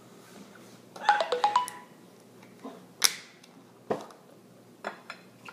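About five quick ringing clinks in a row, a metal spoon knocking against the ceramic cereal bowl, followed by a sharp click and a few lighter knocks as the plastic gallon milk jug is grabbed and its cap handled.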